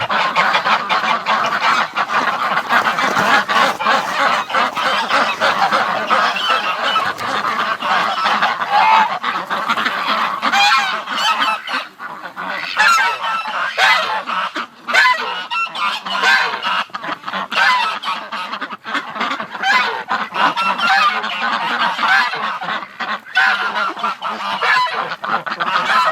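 A flock of domestic geese honking continuously in a dense, loud chorus, with ducks calling among them.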